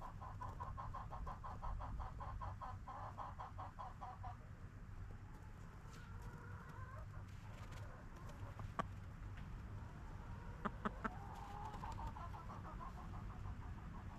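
Chickens clucking: a fast run of short pulsed clucks for the first four seconds, then quieter scattered calls with a few sharp clicks around the middle, over a steady low rumble.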